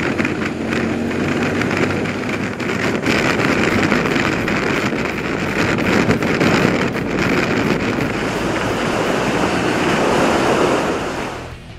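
Heavy wind noise rushing over the microphone on a moving motorcycle, a loud steady roar that dies away near the end.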